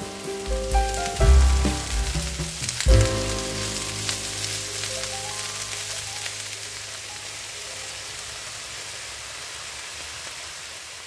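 Chopped spinach sizzling in hot oil in a frying pan as it wilts: a steady hiss. Background music notes play over the first few seconds, then fade, leaving the sizzle alone.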